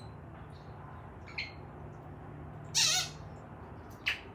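African grey parrot calling: a short whistle about a third of the way in, a louder warbling call past the middle, and a sharp click near the end, over a steady low hum.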